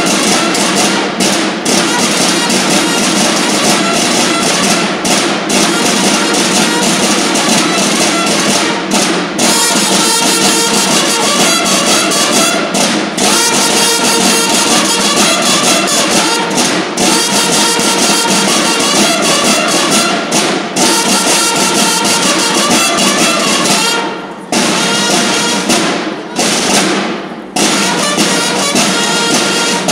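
School drum and bugle corps (banda de guerra) playing: bugles sounding together over snare drums, with a few short breaks near the end.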